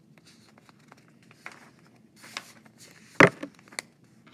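Scattered rustling and clicking handling noises, with one sharp knock about three seconds in and a smaller click just after it.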